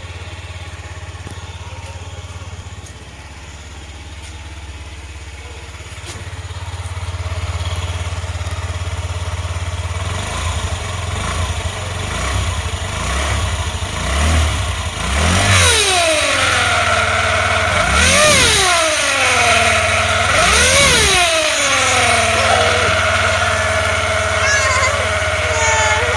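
Honda Zoomer scooter's 50cc four-stroke single-cylinder engine idling, then revved three times, each rev rising and falling in pitch. Near the end it holds a steady, higher speed.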